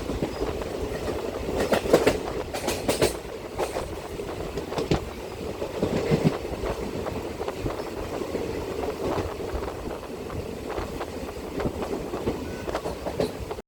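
Indian Railways passenger train running along the track, heard from a window seat inside the coach: a steady rumble with irregular clicks and knocks of the wheels clattering over rail joints.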